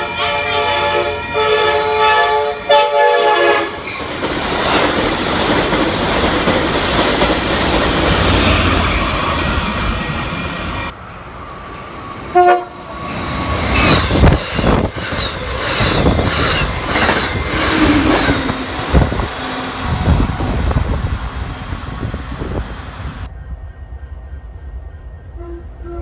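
Amtrak Surfliner train horn sounding a chord of several tones for about three seconds, then a passenger train rushing past close by with clattering wheels and high squeals. A brief horn toot comes about halfway through, and near the end a horn sounds faintly from an approaching train.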